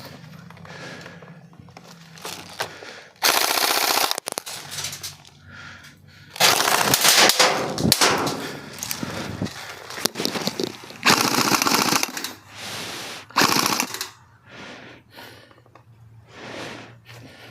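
Airsoft electric rifles firing full-auto bursts, four strings of rapid shots, the longest about two seconds.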